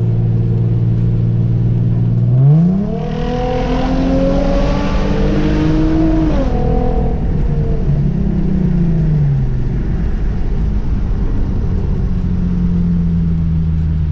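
Straight-piped Hyundai Genesis Coupe 3.8's V6 exhaust while driving. It holds a steady cruising drone, then the revs climb quickly about two and a half seconds in as it accelerates. They stay up for a few seconds and fall away, then sink once more before settling back to a steady cruise.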